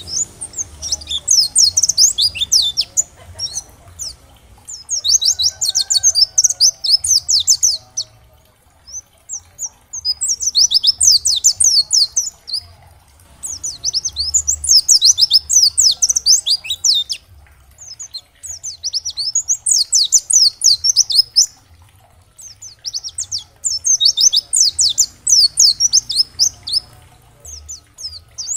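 Pleci dakbal, a white-eye (Zosterops), singing in rapid, high-pitched twittering bouts of a few seconds each, separated by short pauses. The notes come in fast runs, many of them sliding downward in pitch.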